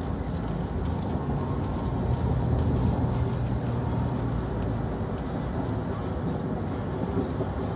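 Steady engine and road noise heard from inside a car's cabin, with a faint low hum in the middle.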